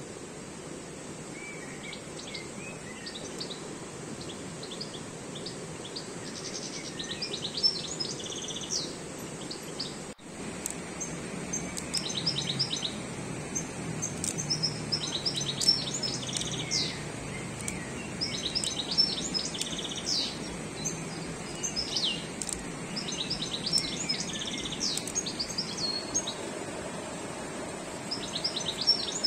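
Songbirds singing in short twittering phrases, repeated with pauses, over the steady rush of a fast mountain stream.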